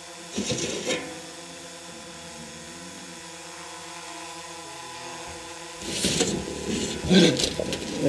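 Metal clanking and scraping from bear transport cages as their sliding shutters are worked open: once about half a second in, then louder and more often over the last two seconds as a brown bear cub bolts out. An engine idles steadily underneath.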